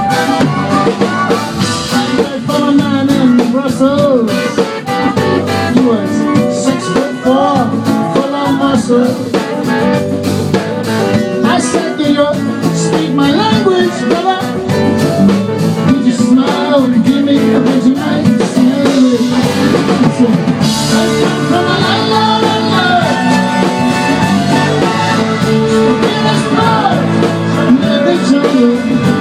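Live band playing loudly: guitars and drum kit with singing over them.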